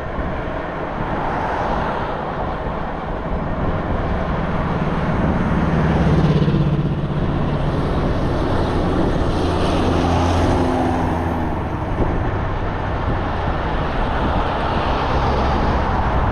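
Road traffic passing close by, with motor vehicles swelling past about six and about ten seconds in, over a steady rumble of wind on the microphone.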